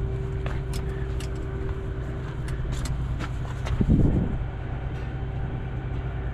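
An engine idling steadily, with a few sharp clicks in the first half and a brief louder burst about four seconds in.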